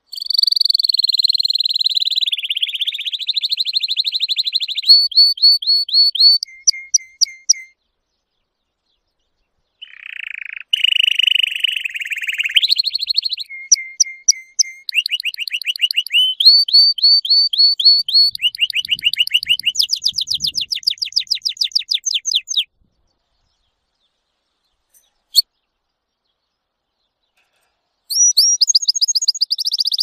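Domestic canary singing: fast rolling trills and runs of rapidly repeated notes, jumping between higher and lower pitches from phrase to phrase. The song comes in three bursts separated by pauses, with a single sharp click in the longer pause.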